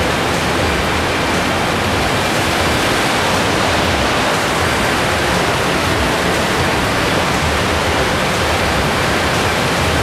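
Steady rushing noise of water from a waterfall and the rocky mountain stream flowing below it.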